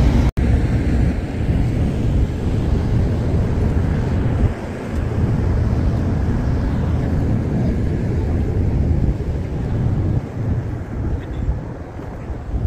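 Wind buffeting the microphone: a loud, low rumble that rises and falls with the gusts.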